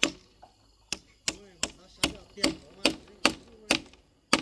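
Claw hammer driving nails into a wooden rail: a steady run of sharp blows, about ten of them at two to three a second, with a short pause just after the first.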